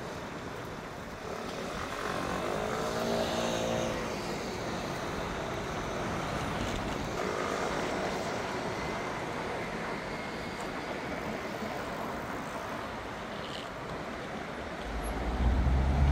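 City road traffic passing steadily, with a short pitched whine from a vehicle a few seconds in and a louder low rumble near the end.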